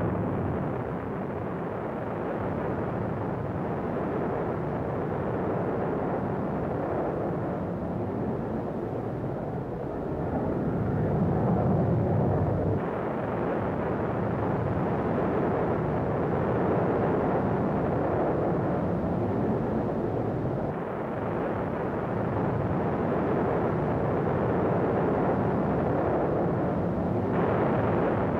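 Steady rumbling noise with no clear pitch, changing abruptly about 13, 21 and 27 seconds in.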